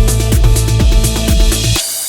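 Electronic background music with a steady bass beat that cuts off near the end, leaving a fading cymbal wash.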